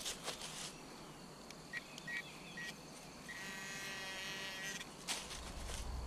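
Metal-detecting pinpointer probing a dug hole: three short buzzy beeps, then one steady buzzing tone lasting about a second and a half, the signal of a metal target close to the probe tip. A few short scrapes and knocks of digging in soil and dry leaves at the start and about five seconds in.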